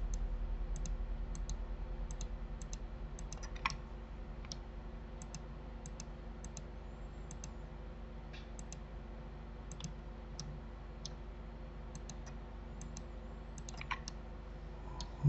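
Computer mouse buttons clicking now and then, often in quick pairs of press and release, over a steady low hum.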